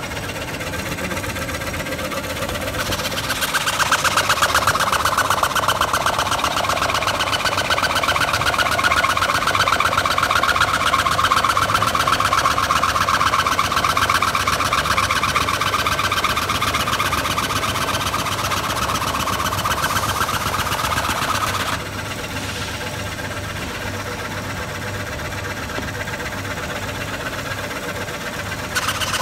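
Homemade band saw running, its blade cutting through strapped bundles of corrugated cardboard. The sound grows louder about three seconds in and holds while the blade cuts, drops suddenly about seven seconds before the end, and rises again right at the end as the next cut begins.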